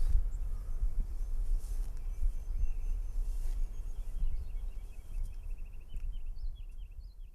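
Outdoor ambience: an uneven low rumble with small birds chirping faintly in quick runs through the second half, all fading out at the end.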